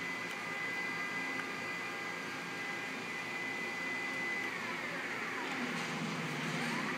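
Stepper drive motors of a vertical CNC plasma table moving the gantry and torch carriage, with a steady high whine. About four and a half seconds in, the pitch glides down, then rises back up near the end as the axis slows and speeds up again.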